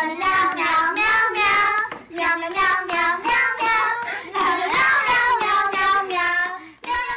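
A high, child-like voice singing a song in held, melodic notes, with short breaths between phrases.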